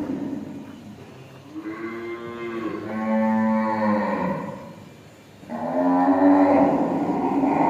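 Cows mooing, long drawn-out calls one after another: one tails off at the start, two more follow back to back from about one and a half seconds in, and another begins about five and a half seconds in and is still going at the end.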